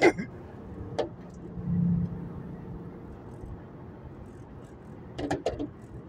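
Steady engine and road noise inside a 2011 Acura TL's cabin as it cruises on the highway, swelling briefly about two seconds in. There is a single click about a second in and a few sharp clicks near the end.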